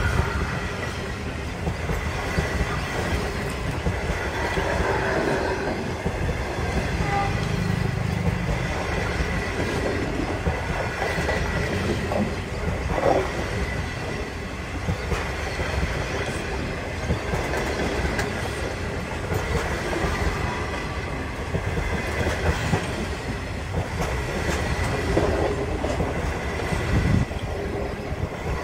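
The Ghan passenger train running on the rails: a steady rumble of wheels on track with rapid clickety-clack over the rail joints and a faint, steady high whine.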